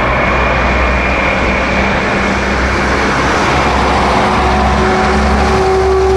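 Four turbofan engines of a Boeing E-8C running at taxi power: a steady, loud rush with a thin whine over it. A humming tone grows stronger near the end.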